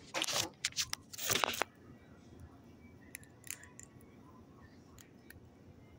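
Handling noise from the phone being grabbed and moved: fingers and hand rubbing and scraping over the phone and its microphone in three rough bursts in the first second and a half, followed by a few faint clicks.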